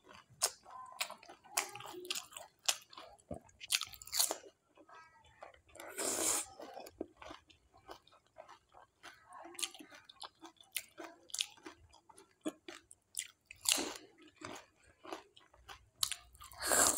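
Close-up chewing of spicy pani puri: crisp fried puri shells crunching between the teeth in many short sharp cracks, with wet mouth sounds. Three longer, louder hissing bursts break in, about six seconds in, near fourteen seconds and near the end.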